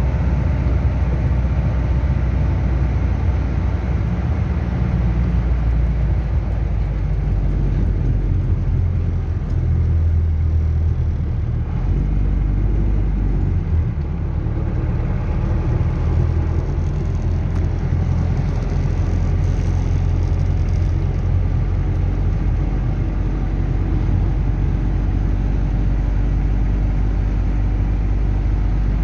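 Chevrolet D-10 pickup's turbo diesel engine running steadily with a deep, low note, its pitch shifting slightly about halfway through.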